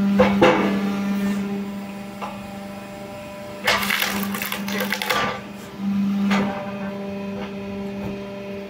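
Horizontal hydraulic log splitter running with a steady hum that swells a little at the start and again around six seconds in. A loud crackling, scraping noise comes briefly near the start and for about a second and a half from about four seconds in.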